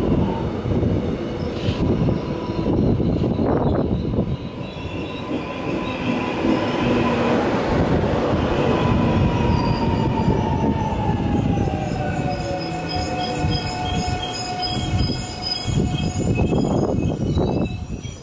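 Korail Class 331000 electric multiple unit pulling out along the platform: a low rumble of wheels on rail with the electric traction whine gliding in pitch, and a high, wavering wheel squeal from about halfway through.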